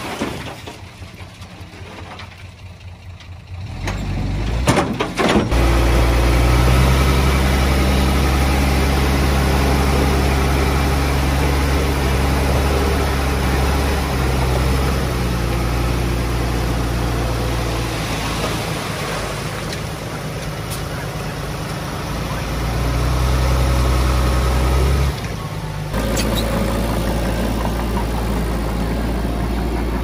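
Heavy diesel engine running steadily, loud from about five seconds in after a quieter start, with a brief dip about 25 seconds in.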